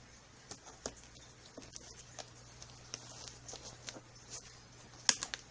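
Packaging being handled and pulled apart by hand: irregular light crinkles, rustles and taps, with one sharp click about five seconds in.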